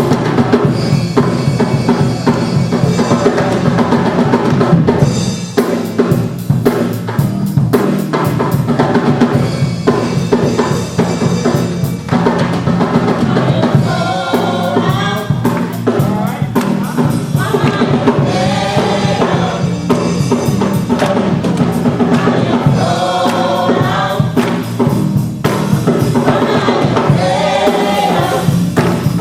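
Live gospel music: a drum kit and band playing with a choir singing over it.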